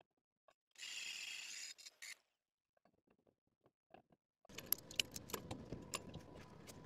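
Faint metallic clicks and clinks as a square steel tube is held in place and locking C-clamp pliers are fitted and closed on it, after a brief scraping hiss about a second in.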